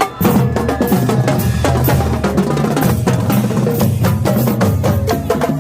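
Marching band drumline playing a fast, loud cadence: rapid snare strikes over pounding bass drums, coming in sharply just after the start.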